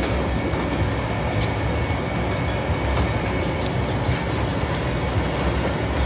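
Steady machinery din of a tracked mobile crusher running alongside tracked excavators: a low rumble with a faint steady whine and a few faint knocks.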